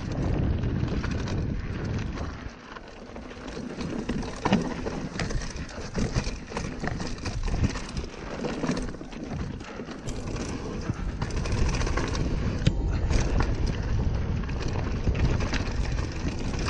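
Mountain bike being ridden over a dirt trail: a steady rush of tyre and wind noise buffeting the microphone, broken by frequent small rattles and knocks. It eases off briefly a few seconds in.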